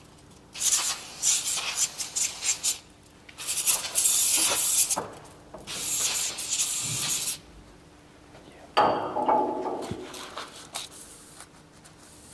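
Aerosol spray can hissing in several bursts of up to a second and a half, sprayed onto a steel tape measure. About nine seconds in, a cloth rubs and wipes the wet tape.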